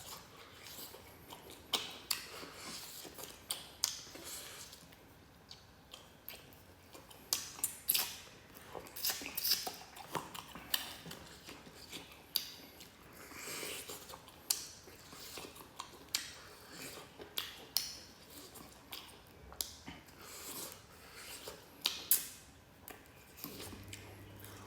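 A person eating spicy duck wings close to the microphone: irregular sharp clicks and smacks of biting and chewing.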